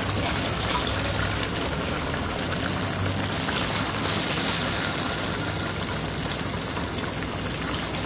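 Curry broth boiling steadily in a stainless steel pot, a continuous bubbling hiss, while vegetables are added to it.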